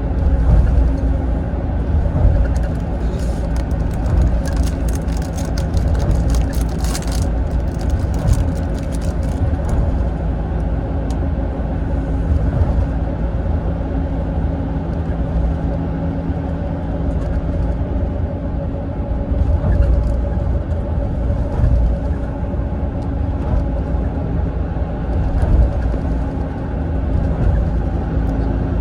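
Cabin noise inside a Mitsubishi Fuso Aero Ace coach on the move: a steady diesel engine drone over road rumble. A run of fine clicks and rattles comes and goes from about three to ten seconds in.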